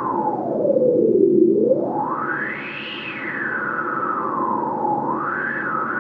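Noise generator of a subtractive synthesizer played through its resonant filter, the cutoff swept by hand to imitate stormy weather. The hiss falls in pitch for about a second and a half, rises to a high peak about three seconds in, falls again, then rises near the end.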